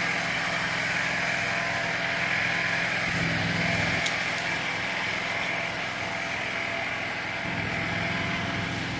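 Fire engine running steadily to drive its pump, under the steady hiss of a hose jet spraying water onto the smouldering forest floor.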